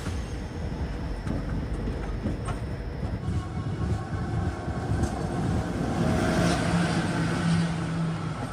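Train running on the rails: a steady rumble with scattered clicks of wheels over the track. A held tone joins in about six seconds in.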